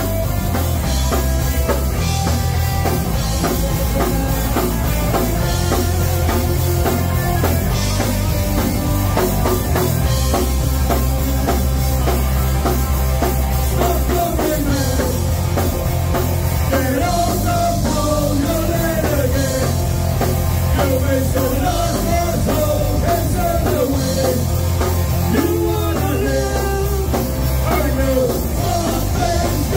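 Live rock band playing at full volume, with electric guitars and a drum kit over a steady beat.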